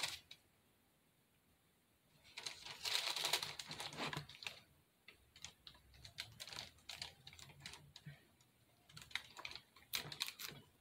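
Faint handling noise of a craft bunny ear on a stick being pushed and worked into a fake-bake cake: a stretch of rustling about two seconds in, then irregular small clicks and crackles as the stick is forced into the base.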